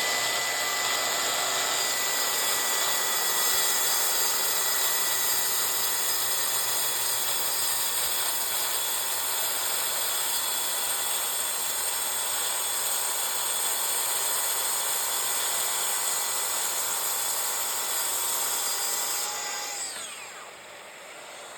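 Festool TSV 60 plunge-cut track saw, with a scoring blade spinning ahead of the main blade, running as a steady high whine while it cuts through melamine board. Near the end the motor is switched off and winds down, its pitch falling.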